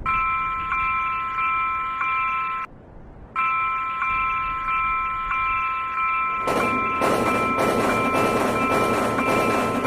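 Railroad crossing (fumikiri) warning bell ringing in a steady repeated ding, about one and a half strikes a second, breaking off briefly about three seconds in. From about six and a half seconds in, the noise of a passing train joins the bell.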